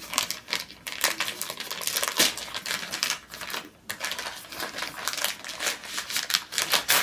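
A bag being opened by hand: irregular crinkling and rustling with many sharp clicks and ticks.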